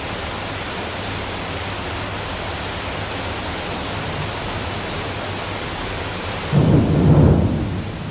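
Heavy rain pouring steadily, with a peal of thunder rumbling in loudly about six and a half seconds in and fading over a second or so.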